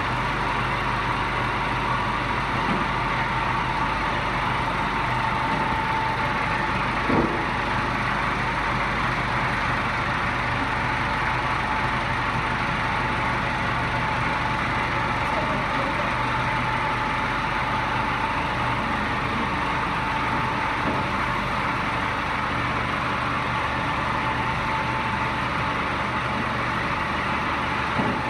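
Tractor engine idling steadily, with one short knock about seven seconds in.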